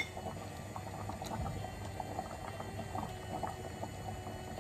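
Tomato sauce with white beans and beef simmering in an open pressure-cooker pot, bubbling with many small irregular pops. It is being left to cook on so the sauce reduces.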